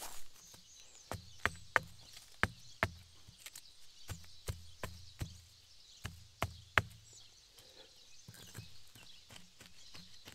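An irregular series of sharp knocks and taps, about a dozen over some six seconds, each with a dull thud beneath it. Fainter ticks follow near the end.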